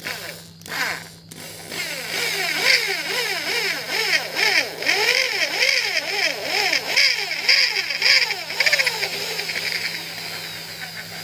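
Electric drill spinning a 4.97 mm reamer through a new valve guide in a motorcycle cylinder head. After a couple of short blips, the motor's whine rises and falls over and over as the trigger is feathered, over a hiss of the reamer cutting metal.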